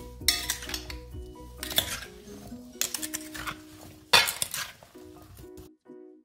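Red plastic serving spoon scraping and knocking against a glass bowl as wet mango slices are tossed with seasoning, in a handful of separate strokes, the loudest about four seconds in; they stop shortly before the end. Light background music with a plucked melody plays underneath.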